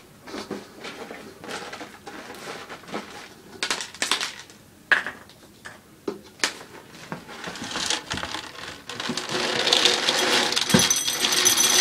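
Scattered clicks and taps as ferrets nose about their food bowls, then, from about nine seconds in, dry cat kibble poured from a plastic jug rattling steadily into a bowl.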